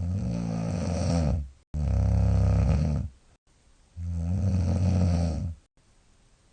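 A young woman snoring heavily, a deep, rumbling snore like the ground shaking. Three long snores, the first two almost back to back and the third after a short pause. She puts the extra force down to rice-pollen season and to not wearing her mouthpiece lately.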